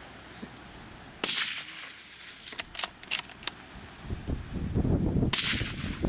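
Two suppressed rifle shots from a bolt-action rifle fitted with a Ross Precision .308 suppressor, about four seconds apart, each a sharp crack with a short decaying tail. Between them come a few quick metallic clicks of the bolt being cycled.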